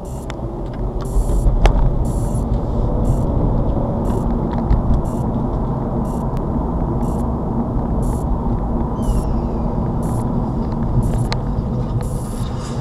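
Car engine idling and a steady low rumble heard inside the car's cabin, the car stopped in traffic and then creeping forward slowly.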